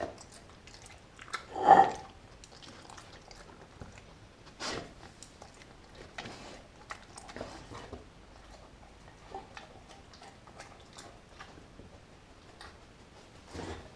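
A dog chewing and biting meat from a glass bowl on a tile floor, in scattered short crunches and clicks. There is one much louder clink or knock about two seconds in, and smaller ones near the middle and just before the end.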